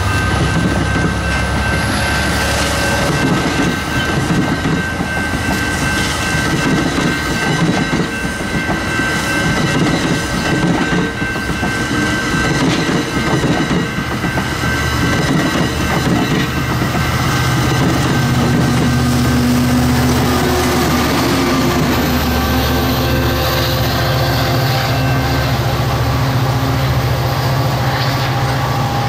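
AMT Bombardier bilevel commuter coaches passing fast over a level crossing, wheels clattering on the rails, with the crossing bell ringing steadily over it. In the last third a low engine drone joins as the train's diesel locomotive goes by.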